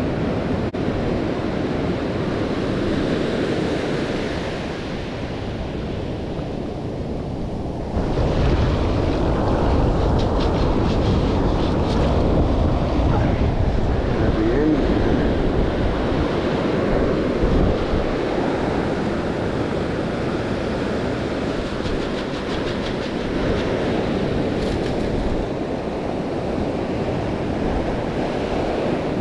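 Ocean surf washing up the beach, with wind noise on the microphone; the sound gets suddenly louder about eight seconds in.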